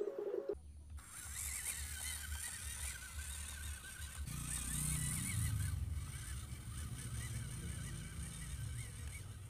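WPL C24 RC crawler truck's small electric motor and drivetrain running as it drives over wet dirt. The low rumble swells about four seconds in and then eases down in pitch, over a steady high hiss. A steady buzzing tone cuts off abruptly about half a second in.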